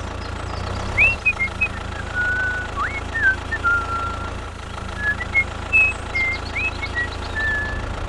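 Tractor engine running steadily at idle-like speed, a low even rumble, with scattered short high whistling chirps over it from about a second in.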